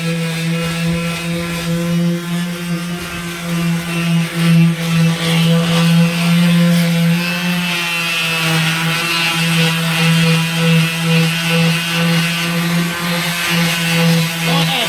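Electric sander running steadily on the van's bodywork, a constant motor hum whose loudness swells and dips as it is worked over the panel.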